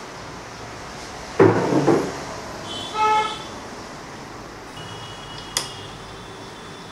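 Plastic body panels of a Hero Ignitor motorcycle being handled and set down: a clatter about a second and a half in, a short pitched squeak in the middle, and a sharp click later.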